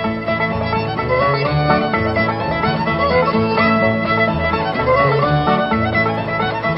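Background music: an acoustic string-instrument tune.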